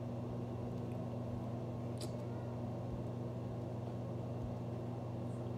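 Steady low mechanical hum of room background noise, such as an appliance or fan, with one faint click about two seconds in.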